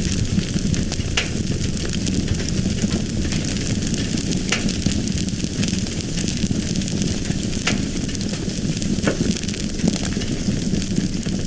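A fire crackling steadily, a dense hiss of small crackles with a few sharper pops every second or two.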